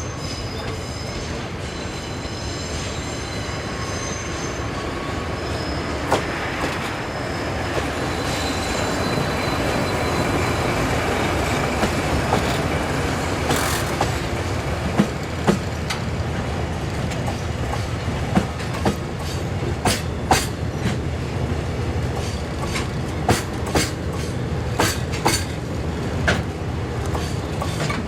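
Freight train rolling slowly: thin, high wheel squeal over a steady rumble in the first few seconds, then sharp clacks as the wheels cross rail joints, more and more often in the second half.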